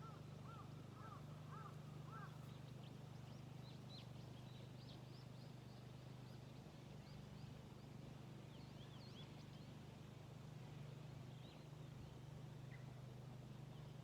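Small birds chirping in short repeated calls. In the first two seconds a lower chirp repeats several times, then many higher, quicker chirps follow, with a faint steady low hum underneath.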